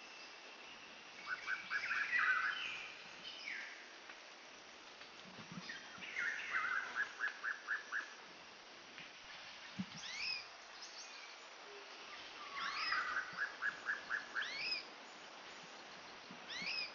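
Birds singing in woodland: three song phrases, each ending in a quick run of about five to seven repeated notes, with short separate sweeping calls in between.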